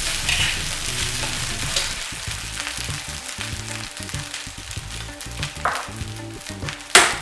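Egg-coated rice crackling and sizzling in a hot wok turned up to high heat, the egg coating now cooked, with many small crackles throughout. A sharp knock near the end is the loudest sound.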